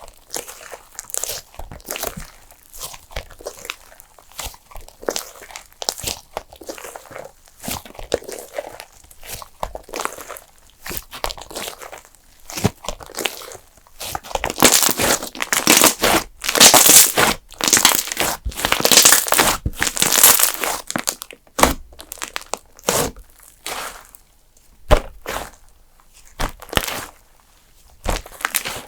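Custard-base slime being squeezed, poked and stretched by hand, giving crackling and popping clicks. The crackling grows denser and louder about halfway through, then eases off again near the end.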